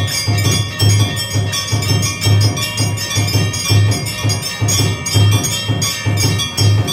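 Temple bells rung rapidly with a drum beating steadily about twice a second: the accompaniment of a Hindu aarti.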